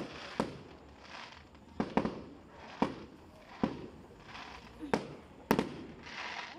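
Aerial fireworks bursting: about ten sharp bangs at irregular intervals, with a crackling hiss between them.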